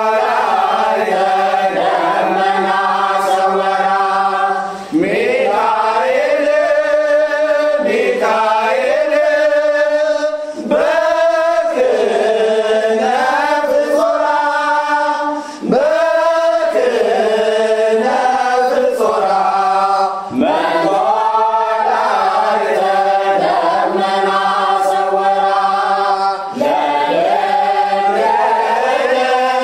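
Ethiopian Orthodox mezmur (hymn) sung in a chanting style by voices, in long melismatic phrases with brief breaths between them about every five seconds.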